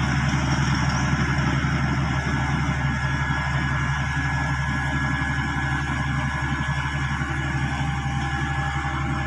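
Motor grader's diesel engine running steadily with a low hum as the machine moves slowly, spreading a crushed-stone aggregate base with its blade.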